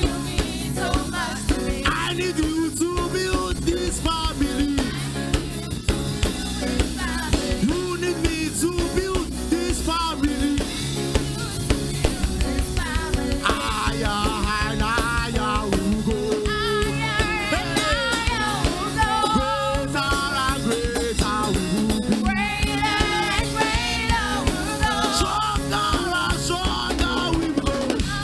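Live praise music: singers on microphones over a drum kit keeping a steady beat.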